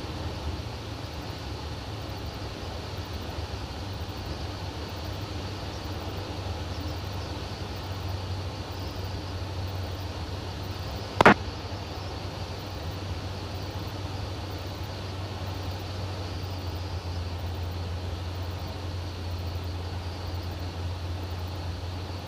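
Light airplane's piston engine droning steadily inside the cabin, with one sharp click about halfway through.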